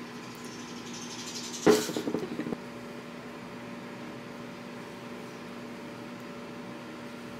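Steady low electrical hum of a room, with a sudden short burst of knocking and rustling about two seconds in that flutters for under a second and then stops.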